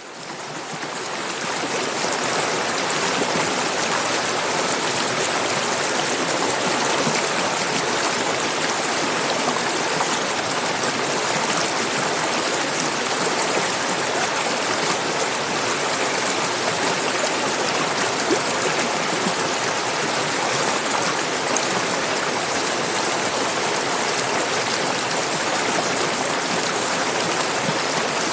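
Clear mountain river rushing and babbling over stones in a steady, even stream. The sound fades in over the first couple of seconds.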